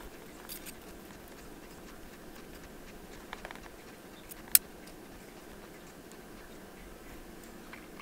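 Watch mainspring being wound into a hand-held mainspring winder: a few faint metallic ticks and light handling clicks, with one sharp click about four and a half seconds in.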